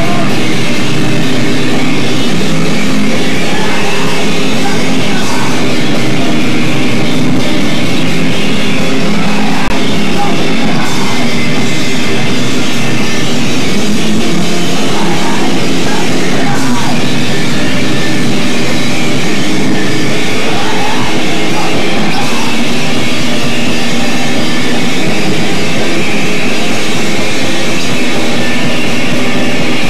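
Emo rock band playing live and loud: electric guitar and bass guitar over a drum kit, at an unbroken high level.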